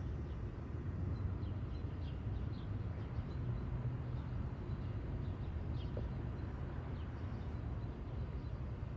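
Outdoor ambience at a rail yard: a steady low rumble, with a few faint, short bird chirps scattered through.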